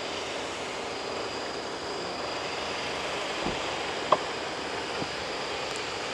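Steady rushing outdoor background noise with a faint high-pitched tone running through it. There is a sharp click about four seconds in, with two softer knocks shortly before and after it.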